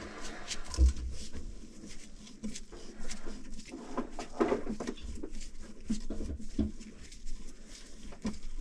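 Scattered knocks, clicks and low thumps of people moving about and handling things, with one heavier thump about a second in.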